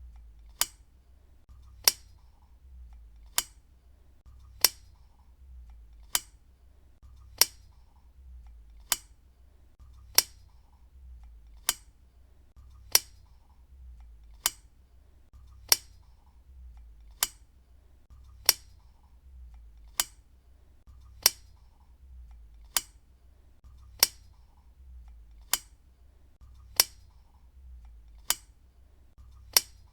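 Desk lamp switch clicked on and off over and over, a single sharp click about every second and a half.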